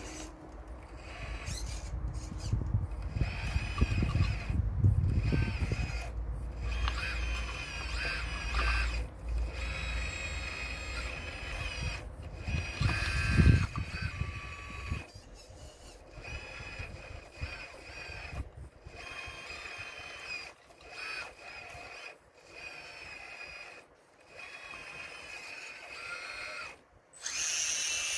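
Electric motor of a Caterpillar-styled RC excavator whining as it works, running in spurts with short stops as the controls are worked. There is heavy low rumbling in the first half.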